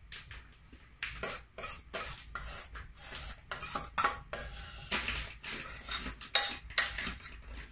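Metal spoon scraping and knocking against a stainless steel mixing bowl, working mashed sweet potato out of it in quick irregular strokes, about two or three a second.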